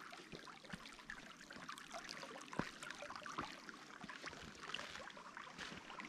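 Shallow stream water trickling over rocks, a soft steady rush with scattered small ticks and one sharper click about two and a half seconds in.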